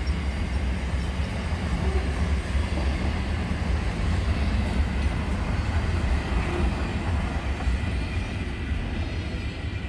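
Double-stacked container freight train rolling past, its wagons making a steady low rumble.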